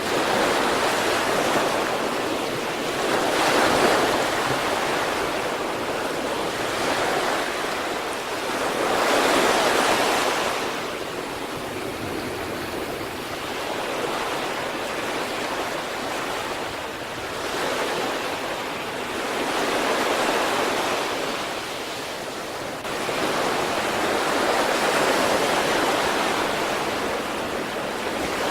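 Sea waves breaking and washing on the shore, a steady rush of surf that swells and falls back every five or six seconds.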